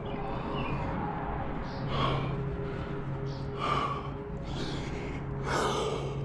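Climber's heavy breathing while climbing: three sharp, forceful exhalations about two seconds apart, over a steady low hum.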